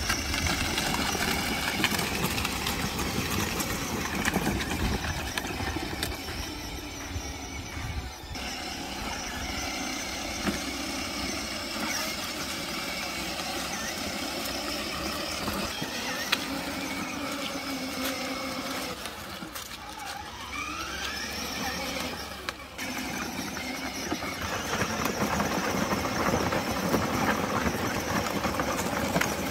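Battery-powered ride-on toy Jeep's electric motors and plastic gearboxes whining steadily as it drives over dirt and gravel, with a rising whine about two-thirds of the way in.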